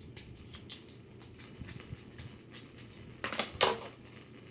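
Snow crab leg shell being cracked: small clicks and crunches, then two sharp loud cracks a little past three seconds in, the second the louder.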